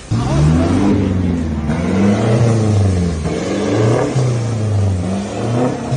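Turbodiesel pickup truck engine with an aftermarket exhaust, revved up and down several times in quick succession.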